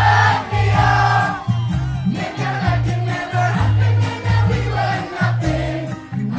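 Live amplified band performing a pop song, with sung vocals over a pulsing bass line.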